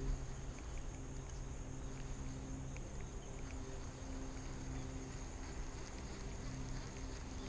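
Outdoor lakeside ambience: a steady high-pitched insect drone, with a low hum that comes and goes underneath.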